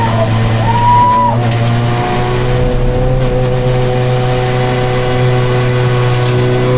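In-car sound of a Honda Civic Type R BTCC touring car's turbocharged 2.0-litre four-cylinder running at a steady pitch in fourth gear, around 3,500 rpm. A short, high tyre squeal comes about a second in.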